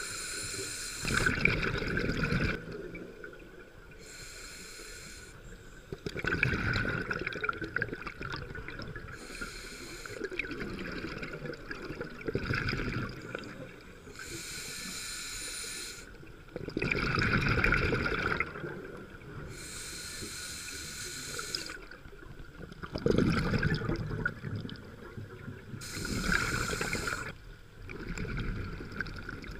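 Scuba diver breathing through a regulator underwater: each inhalation a hiss from the demand valve, each exhalation a loud burst of bubbles. Five or six breaths, one every five or six seconds.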